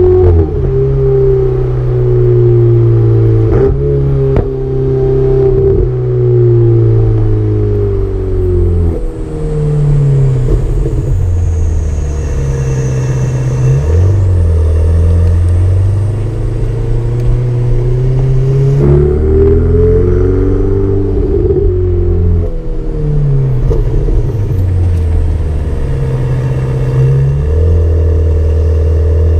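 Ferrari 488 Spider's 3.9-litre twin-turbo V8 heard from inside the cabin, its note climbing and dropping several times as the car accelerates, shifts and slows. A couple of sharp clicks sound about four seconds in.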